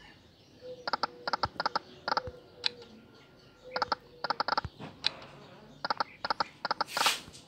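Slot-game sound effects from EGT's 5 Dazzling Hot: the reels spin and stop one after another in quick runs of short pitched clicks. There are about three losing spins with no win jingle. Near the end there is a brief loud rush of noise.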